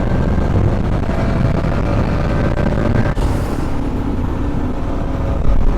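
Bajaj Pulsar RS 200 motorcycle riding along at steady speed: wind rushing over the microphone, with the single-cylinder engine running steadily underneath. A short hiss about three seconds in.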